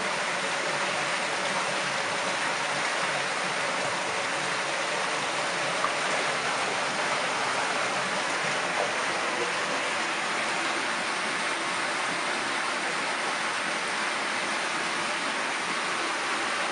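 Steady rush of flowing and falling water at a water treatment plant's stacked rapid sand filter.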